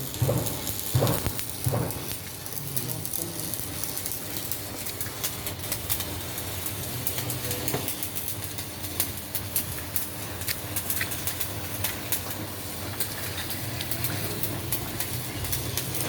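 Ship's diesel engine running steadily: a low hum under a constant clatter of sharp ticks.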